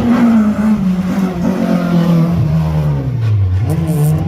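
A racing engine revving, its pitch falling steadily as the revs drop, with a few short throttle blips near the end.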